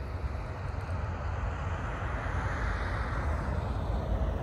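Distant Boeing 777-300ER jet airliner on final approach: a steady jet roar that slowly grows louder over a heavy low rumble.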